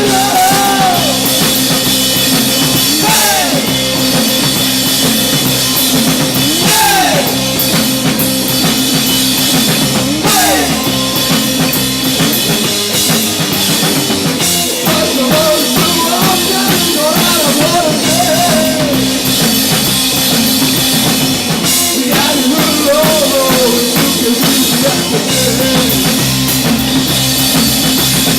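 Rock band playing a song live: drum kit with cymbals under sustained bass and electric guitar, with a melodic line of bending notes over it.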